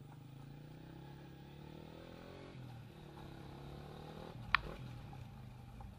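Motorcycle engine running faintly at low speed, a low steady hum, with one short click about four and a half seconds in.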